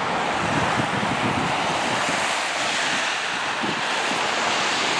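Wind blowing across the microphone: a steady rushing hiss with a gusty, fluttering rumble underneath.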